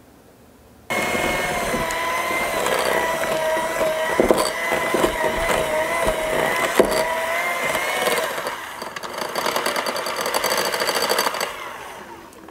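Electric hand mixer switched on about a second in, running steadily with its beaters whipping cream cheese icing in a glass bowl and knocking against the glass a few times. It runs down and stops near the end.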